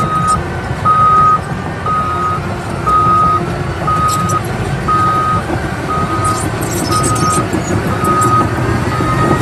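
Large crawler bulldozer's diesel engine running steadily under load while its backup alarm beeps, one beep about every second, about ten in all.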